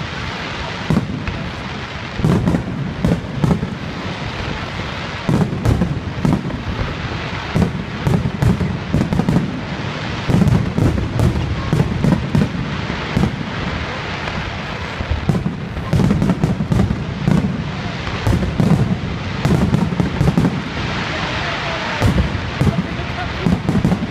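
Fireworks display: aerial shells bursting in rapid, irregular succession, many sharp bangs often less than a second apart over a continuous low rumble.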